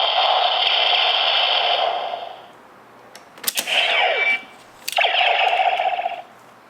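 DX Neo Decade Driver toy belt playing electronic sound effects through its small speaker: one long effect that stops about two and a half seconds in, then a sharp click a little after three seconds and another about five seconds in, each followed by a shorter burst of effect sound with falling sweeps.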